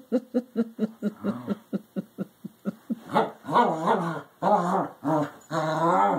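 A dog vocalising in play: quick short grunts several times a second for about three seconds, then longer, wavering growls.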